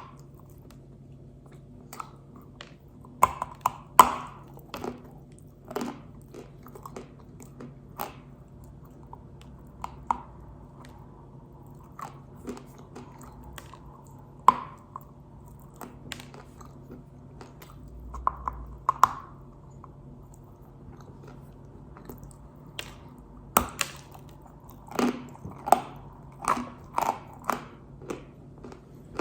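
Pink Uzbek edible clay being bitten and chewed, giving irregular sharp crunches with pauses between them and a dense run of crunching in the last few seconds.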